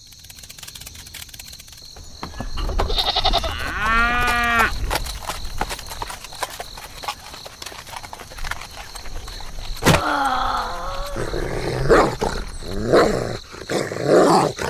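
Several quavering, bleat-like animal calls of a farm animal, one about four seconds in and a cluster from about ten seconds on, over a rapid, irregular clicking.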